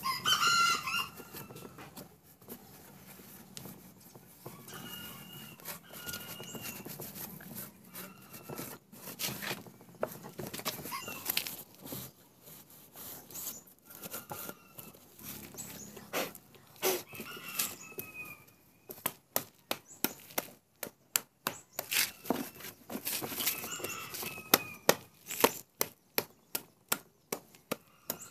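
Short bird calls now and then, with a run of sharp clicks, about two or three a second, through the second half.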